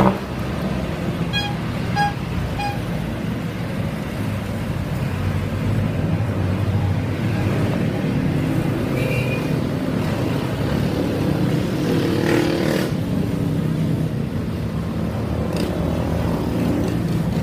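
Motorcycle engine running steadily with a low hum, with a brief rise in noise about twelve seconds in.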